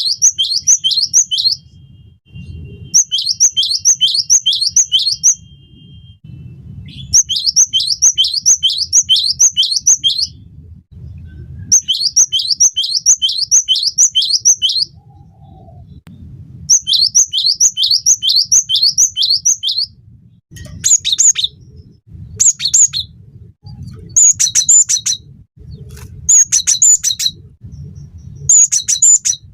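Cinereous tit (gelatik batu) singing: bouts of rapid, repeated high notes, about five a second, each bout lasting two to three seconds with short pauses between. About two-thirds of the way through, the song changes to shorter, sharper bursts of two-pitched notes roughly every second and a half.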